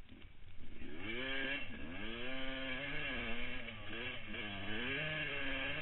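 Yamaha motocross bike's engine heard from the rider's helmet, quiet at first, then revving up hard about a second in. It keeps rising and falling in pitch as the throttle is worked.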